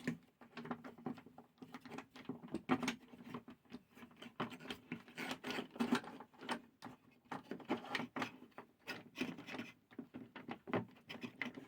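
Rip fence being fitted and slid into place on a table saw's thin metal table: irregular light clicks, knocks and rattles of metal and plastic parts being handled. The saw is not running.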